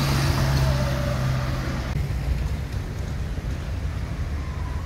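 Car traffic on a town street: an engine hum at the start that dies away about two seconds in, over a steady low rumble.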